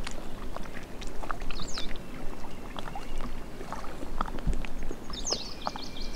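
Small waves lapping and splashing at the lake's edge, with light wind, and a bird chirping briefly twice, about two seconds in and again near the end.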